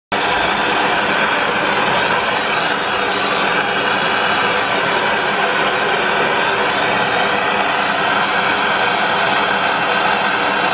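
Handheld gas blowtorch burning with a steady, even roar, cutting in suddenly at the start.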